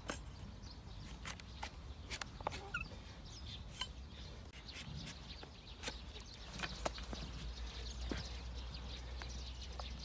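A flat hoof-trimming blade cutting and scraping the horn of a donkey's overgrown hoof, in scattered sharp clicks and scrapes. A couple of faint bird calls come in about two and a half seconds in.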